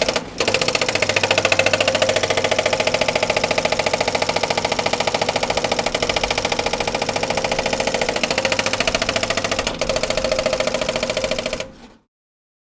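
Pneumatic jackhammer hammering in a fast, steady rattle of rapid blows, which dies away about twelve seconds in.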